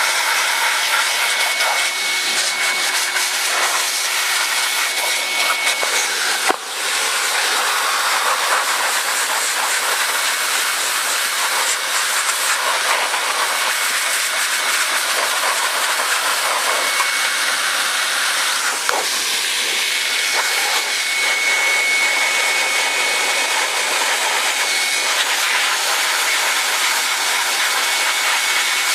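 Compressed-air blow gun hissing steadily as it blows dirt out of a lawn mower engine's air filter element, so the filter can be reused rather than replaced. A thin whistle rides on the hiss at times, and the air cuts out briefly about six seconds in.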